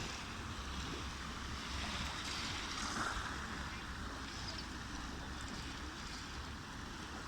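Sea water rushing and splashing under wind buffeting the microphone, with a steady low rumble underneath.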